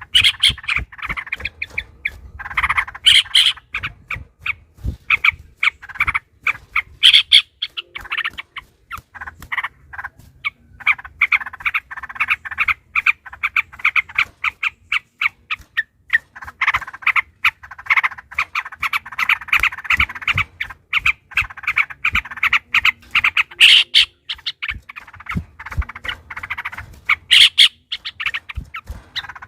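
Yellow-vented bulbuls (trucukan) singing in long, rapid runs of short chattering notes, with a couple of brief lulls. It is an agitated, fighting-style song.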